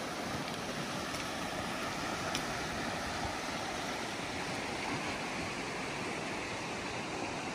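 Steady rush of a fast-flowing river running over a stony bed.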